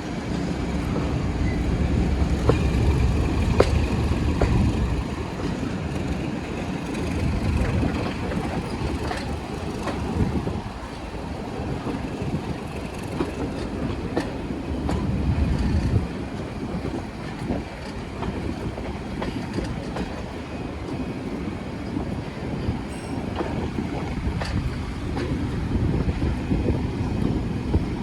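A train running past, with a steady rumble that swells and eases and scattered sharp clicks from the wheels on the track.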